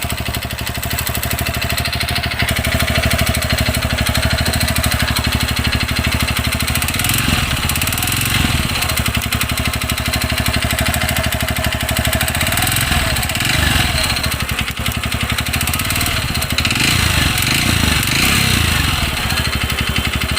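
TVS Radeon BS6 fuel-injected single-cylinder motorcycle engine idling with an abnormal engine noise, the throttle blipped up and down a few times. The mechanic takes the noise for piston noise, since it fades at higher revs and the timing chain tensioner checked out fine.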